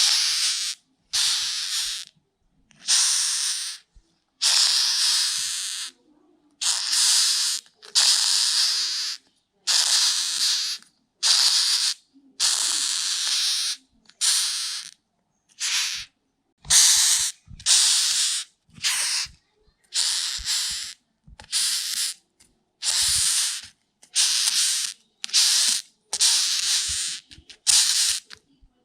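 Rhinoceros beetle hissing by stridulation, in a long series of short, harsh hisses about a second long, separated by brief silent gaps.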